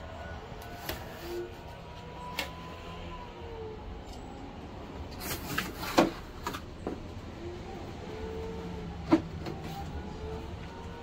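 A cardboard box being opened by hand: the lid, flaps and a cardboard insert sheet handled and lifted, giving scattered sharp taps and scrapes. The two loudest come about six and nine seconds in, over a low steady background hum.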